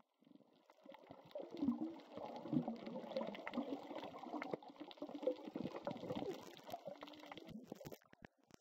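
Muffled underwater sound of water bubbling and crackling, heard with the microphone just below the surface. It drops away sharply near the end as the camera comes up out of the water.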